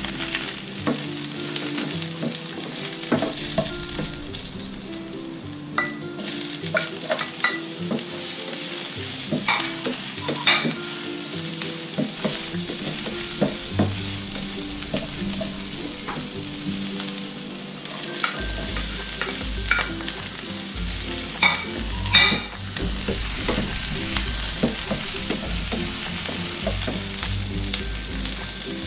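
Garlic, ginger and red onion sautéing, sizzling in hot oil in a nonstick frying pan and stirred with a wooden spatula, with scattered clicks and knocks of the spatula on the pan. The sizzle gets louder about two-thirds of the way through.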